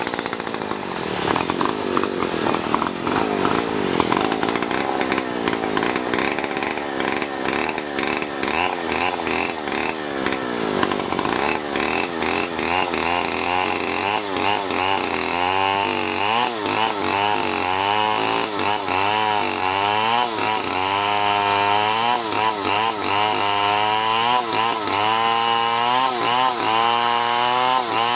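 A power tool cutting wood, its motor pitch rising and falling again and again as it takes the load.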